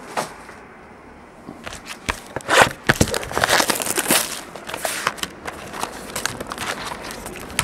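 Crinkling and rustling of plastic card sleeves and holders as trading cards are handled, with short clicks of plastic against plastic, busiest in the first half and lighter near the end.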